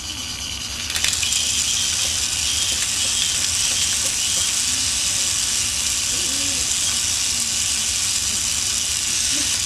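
K'nex roller coaster machinery running: a steady plastic rattle and whir of the moving train and its motor-driven parts, starting with a click about a second in.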